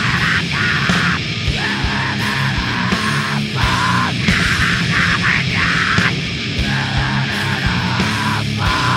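Loud, heavy rock music with a driving drum beat and guitars.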